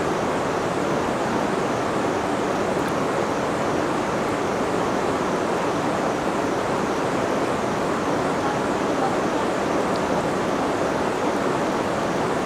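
River water rushing, a steady, even roar of flowing water that holds at one level throughout.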